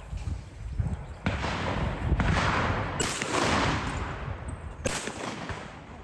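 Shotgun firing at clay targets: sharp reports about a second in, about three seconds in and near the end, with a loud rushing noise between them.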